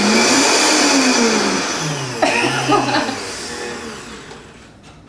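Vitamix blender motor running on a jar of frozen strawberries: its pitch rises, falls back, and holds steady briefly with a few knocks from the frozen fruit. About three seconds in it is switched off and winds down. The frozen chunk is not breaking down.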